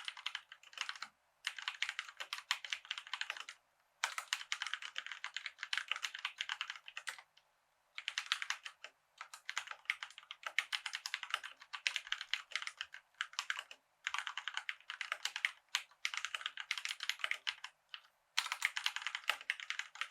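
Typing on a COX CK87 tenkeyless mechanical keyboard with Gateron brown tactile switches: quick runs of clacking keystrokes, each lasting a second to several seconds, broken by short pauses.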